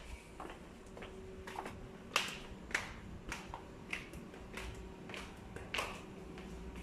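Footsteps in sandals on tiled stairs going down: a series of sharp slapping taps, a bit under two a second, the loudest about two seconds in.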